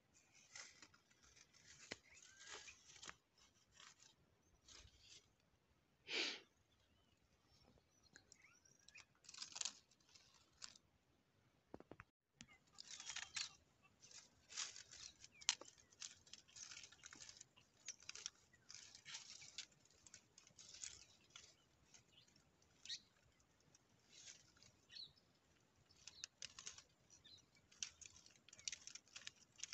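Near silence broken by faint, scattered short rustles and clicks, mostly high-pitched, with a moment of total silence about twelve seconds in.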